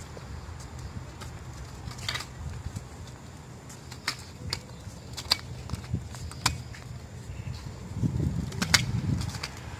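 Two-wheeled kick scooter rolling over skatepark concrete: a steady low rumble from the wheels, swelling about eight seconds in, with scattered sharp clicks and knocks.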